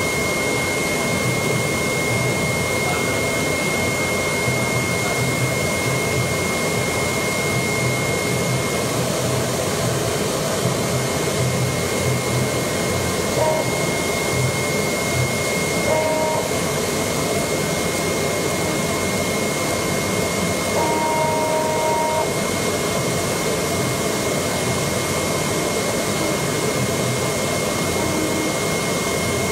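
AOKE DCH-series CNC cardboard cutter running while it cuts 2 mm E-flute corrugated sheet: a steady rushing machine noise with a thin high whine throughout. A few brief higher tones come and go about halfway through, the longest lasting about a second.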